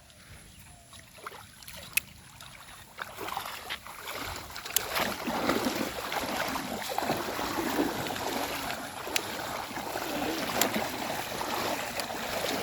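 River water splashing and sloshing, faint at first and getting louder about four seconds in, with a few sharp clicks.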